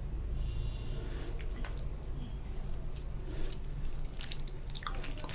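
Fingers mixing fried rice into chicken curry gravy on a steel plate: soft wet squishing with small sticky clicks.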